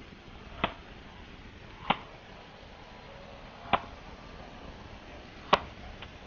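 Four separate sharp knocks, each a single strike, spaced one to two seconds apart over a steady hiss.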